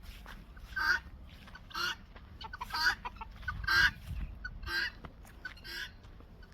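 Farmyard fowl calling: a run of short, harsh calls repeated about once a second.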